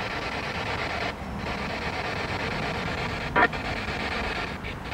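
SB7 spirit box sweeping through radio stations, giving a steady choppy static hiss with a short burst about three and a half seconds in.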